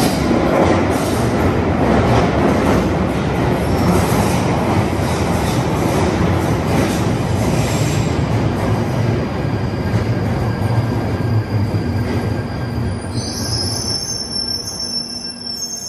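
London Underground Northern line 1995 Stock train running into the platform and braking to a stop. Loud rolling noise of wheels on rail eases off about twelve seconds in, then a high squeal of several tones sounds near the end as the train comes to a halt.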